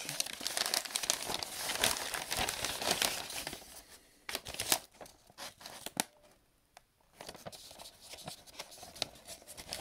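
Newspaper wrapping being crumpled and torn off a cardboard box by hand: a dense crackling rustle with sharp crinkles, pausing briefly about two thirds of the way through.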